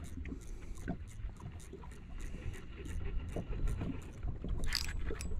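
Low rumble of wind and small waves lapping against a fishing boat's hull, with faint scattered knocks and a brief hiss near the end.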